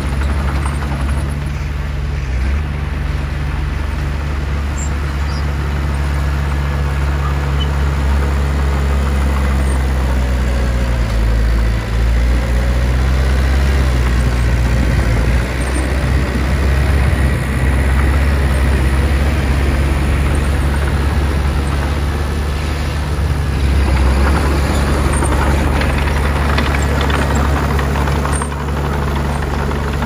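Small Komatsu D20P crawler bulldozer's diesel engine running steadily at working speed while it pushes soil. The low engine drone holds throughout, its level and roughness shifting a few times.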